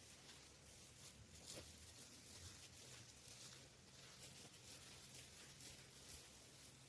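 Near silence: faint background hiss and low hum, with a few soft rustles.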